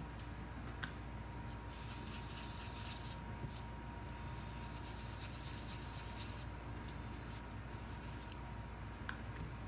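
Makeup brush rubbing powder blush onto a piece of EVA foam: soft scrubbing strokes in several spells, with a few light clicks.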